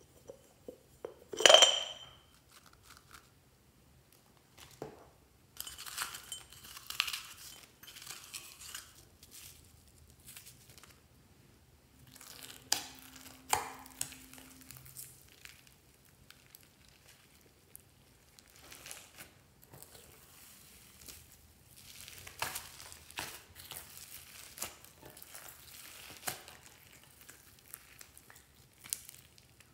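Close-up handling sounds of slime and toppings in a glass bowl. There is a sharp clink about a second and a half in, crinkly rustling of glitter and charms, light clicks as gold heart charms drop onto the slime, and near the end the crackly tearing of fluffy slime being pulled apart by hand.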